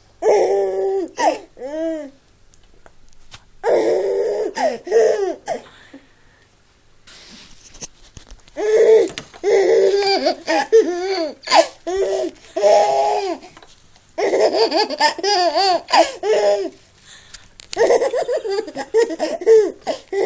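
Five-month-old baby laughing in bouts of high-pitched giggles and squeals. Two short bursts come a couple of seconds apart, then a long stretch of near-continuous laughter from about halfway on.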